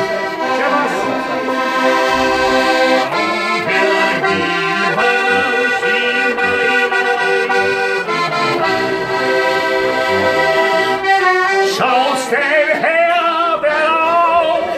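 Button accordion playing a tune in held chords. About twelve seconds in, the player's voice joins, singing along.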